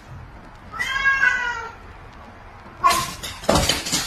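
A domestic cat gives one drawn-out, wavering meow about a second long, facing up to a dog. Near the end comes a burst of sharp clatter and scrabbling as the animals scuffle on a hard tiled floor.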